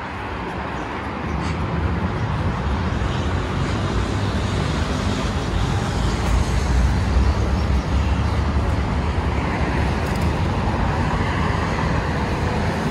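Steady road traffic noise: a continuous rush with a deep rumble that grows louder about a second in.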